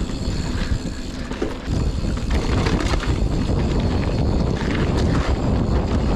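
Mountain bike ridden uphill on a dirt trail: a steady rumbling noise with scattered clicks and rattles from the bike, dipping briefly about a second and a half in.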